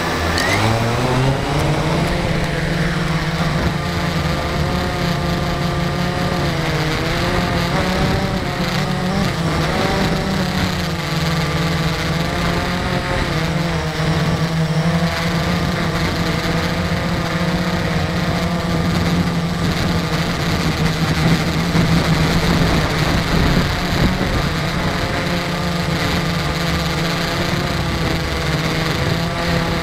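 Quadcopter drone's electric motors and propellers spinning up from rest with a quick rising whine in the first second or so, then a steady buzzing hum whose pitch wavers as it lifts off and flies. Heard very close, from the drone's own on-board camera.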